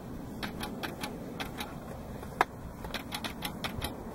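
Camera shutter clicking over and over, rapid and irregular, with one louder click about two and a half seconds in: the camera is being fired by a lightning trigger that keeps going off without any lightning, which the chasers put down to the trigger being sensitive to light.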